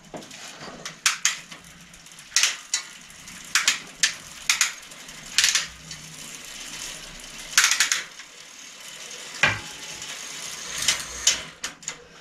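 Irregular metallic clinks and rattles of metal tools and bicycle parts being handled at a repair stand, a dozen or so sharp knocks spread unevenly.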